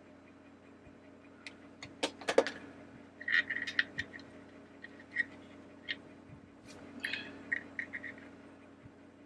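Handling noise from small plastic parts: a couple of sharp knocks about two seconds in as a plastic hand light is set down on the cutting mat, then scattered clicks and short scrapes as fingers work the gears inside the teacup's base, over a faint steady hum.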